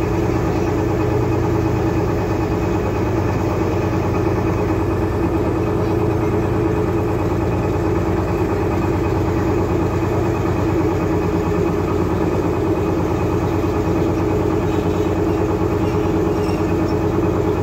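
A motorboat's engine running steadily at an even speed, with a fast, even pulse to its note.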